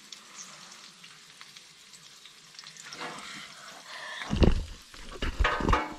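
Food sizzling and frying in a pan, a faint steady hiss, with a few loud low thuds near the end.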